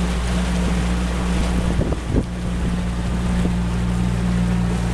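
Motorboat engine running at a steady drone, with wind and water noise over it. A couple of brief knocks sound about two seconds in.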